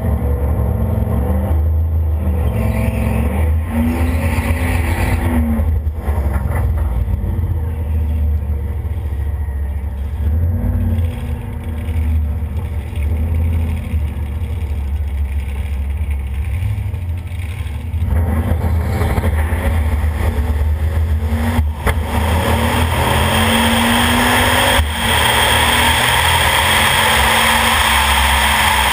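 Turbocharged Chevrolet Camaro engine rumbling at idle and creeping forward at low throttle, then about twenty-two seconds in it goes to full throttle on the launch and pulls hard. About three seconds later there is a brief dip, like a gear shift.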